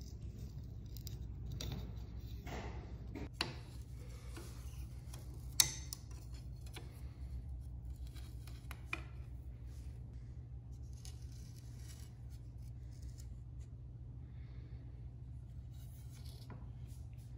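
Hands handling and lifting a red slotted strip off a grand piano's perforated metal plate: soft rubbing and scraping, with a sharp click about three and a half seconds in and a louder one about five and a half seconds in, over a low steady hum.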